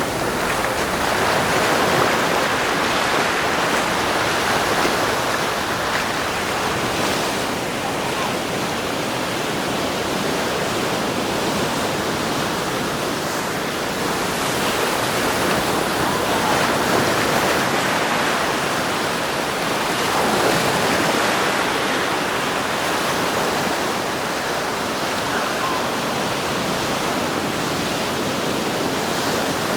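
Surf washing onto a sandy beach: a steady rush of water noise that swells now and then.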